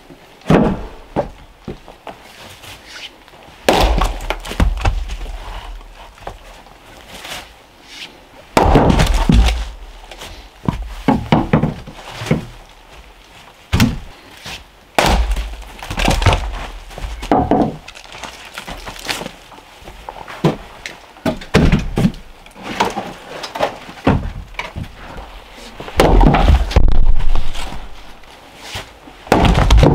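Axe splitting firewood on a chopping block: a dozen or so sharp strikes, spaced irregularly a second or several apart, each with the crack and knock of the wood coming apart.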